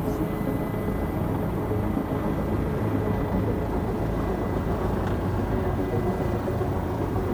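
Helicopter engine and main rotor running steadily, heard from inside the cabin close to the ground.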